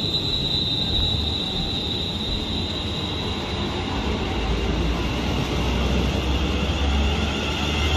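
Class 350 Desiro electric multiple unit running past along a platform: a steady high whine that fades over the first few seconds over a continuous rolling noise, with a low rumble building from about halfway.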